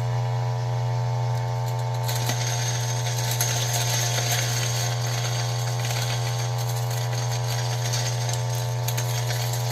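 Ceado E6P flat-burr espresso grinder motor running with a steady hum. About two seconds in, a crackling starts on top of it as beans are fed in and crushed by the burrs.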